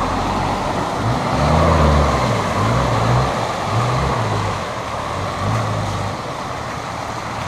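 A four-wheel-drive vehicle driving along, with a steady rush of wind and road noise. The engine's low hum rises and falls several times as the revs change.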